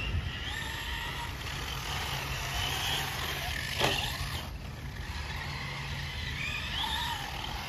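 Electric RC short-course truck running on dirt, its motor giving a high whine that rises and falls in pitch as the throttle changes. A single sharp knock comes about four seconds in.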